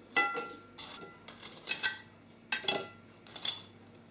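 Metal kitchen tongs clinking against a metal serving tray and a plate as churros are picked up and set down. There are several sharp clinks, spaced irregularly about half a second to a second apart, some with a brief metallic ring.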